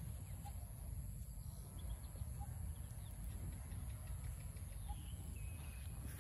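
Outdoor ambience: a constant low rumble under a steady high-pitched whine, with a bird repeating one short note about every two seconds and a few faint chirps.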